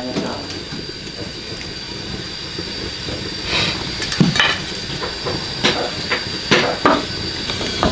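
A kettle on a wood-fired stove hissing with a thin high whine as the water nears the boil, over the fire burning. Several sharp knocks and clicks of firewood sticks being handled and pushed into the fire break in from about three and a half seconds on.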